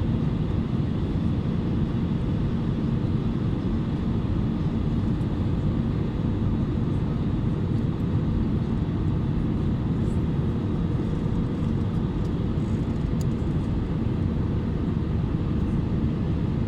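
Steady low rumble of cabin noise inside an Airbus A320neo in flight on approach, from airflow and the engines, with no change in pitch or level.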